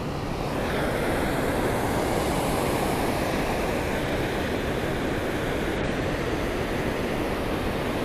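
Steady rush of river water pouring over a low weir and through the whitewater just below it.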